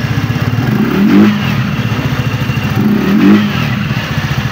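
TVS NTorq 125 scooter's single-cylinder engine idling, blipped up in revs twice, briefly about a second in and again about three seconds in. It has just been tuned up, with throttle body cleaning and idle RPM adjustment, and now runs without the hard starting and stalling it had.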